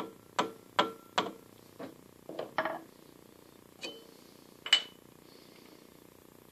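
A soft-faced mallet taps a bent steel shaft held in a lathe chuck to straighten it: four quick ringing blows about 0.4 s apart. These are followed by a short rattle and two sharper metal clanks, the last one the loudest, as parts and the magnetic base are moved on the lathe bed.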